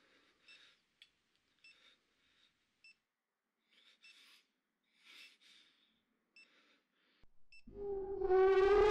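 Faint, short electronic beep repeating about every second and a quarter, with soft breath-like hisses between. About eight seconds in, a loud wailing tone with a rush of noise breaks in abruptly and rises slowly in pitch, like a siren.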